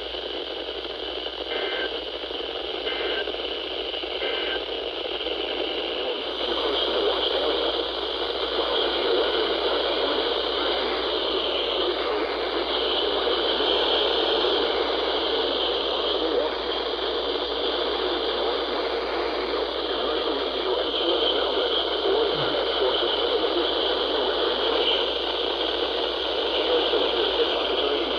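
Weather radio receiver hissing with steady static and no broadcast voice coming through; the hiss grows a little louder about six seconds in.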